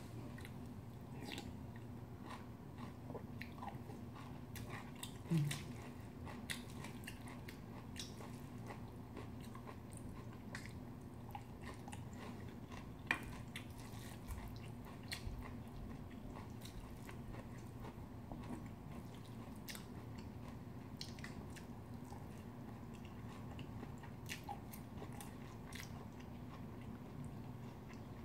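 Close-up eating sounds: chewing and biting on bibimbap and kimchi, with scattered small clicks of a spoon and chopsticks against the bowls. A louder short low sound comes about five seconds in, and a sharp click about thirteen seconds in.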